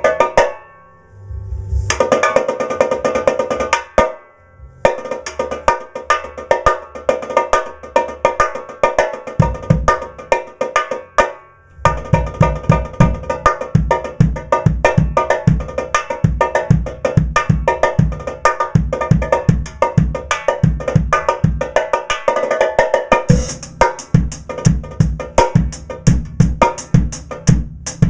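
Pearl Firecracker steel-shell snare drum played with the snares off and tuned very high, so each stroke rings with a bright, pitched, cowbell-like tone. It is played in quick strokes and rolls with a few short pauses, and low kick-drum thuds join in about a third of the way through.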